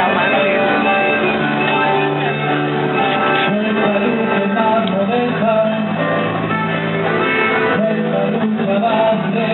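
Son jarocho fandango music: voices singing over plucked and strummed jaranas, small Mexican guitars, played live without a pause.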